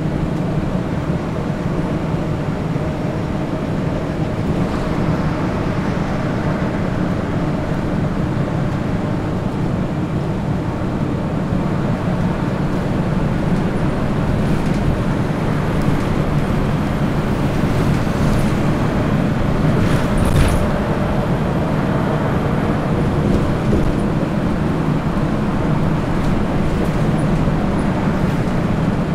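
Inside a city bus cruising on a highway: a steady drone of the engine and road noise from the tyres, with a short knock about twenty seconds in.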